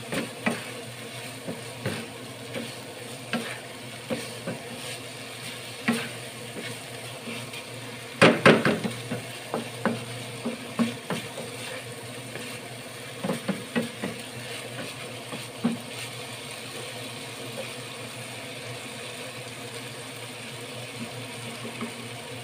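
Wooden spatula stirring and scraping chopped chilies in a nonstick frying pan, with irregular knocks against the pan and a loud flurry of scraping about eight seconds in, over a steady low sizzle of the oil. The stirring stops for the last several seconds.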